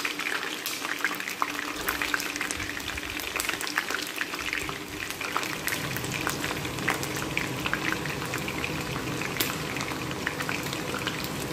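Chicken wings frying in hot oil in a pan: a steady sizzle full of small crackles and pops.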